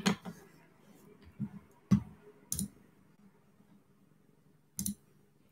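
A few separate sharp clicks and soft knocks close to the microphone, spaced irregularly, with a quick double click near the end.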